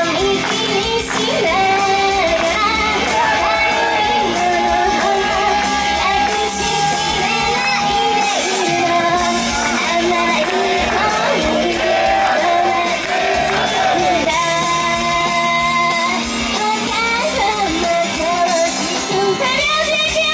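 Japanese idol pop song performed live: female vocals singing over a backing track in a large hall, with audience shouts mixed in.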